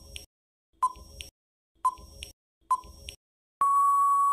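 Quiz countdown timer sound effect: three short beeps about a second apart, each followed by a faint tick, then a long steady beep near the end as the time runs out.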